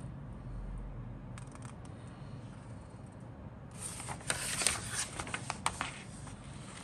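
A folded paper instruction sheet being opened out by hand: paper rustling and crinkling with sharp crackles, starting about four seconds in and lasting around two seconds, over a faint low hum.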